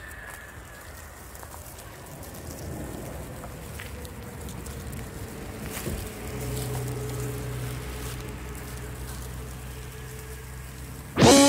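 Small electric motor of a 1/10-scale RC crawler running with a faint steady hum over a noisy rustling bed, the hum growing stronger about halfway in. Rock music with electric guitar starts suddenly near the end.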